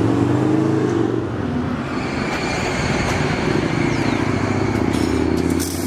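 A car engine running steadily, its pitch shifting slightly near the start.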